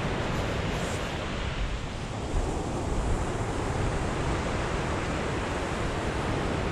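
Surf breaking and washing onto a shingle beach, with wind buffeting the microphone.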